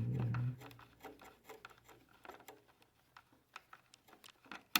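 Faint, scattered small clicks and taps of parts and tools being handled, with one sharper click near the end.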